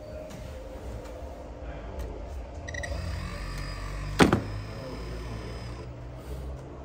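Electric motors and gearing of RC model construction machines whining over a steady low hum, with one sharp knock about four seconds in.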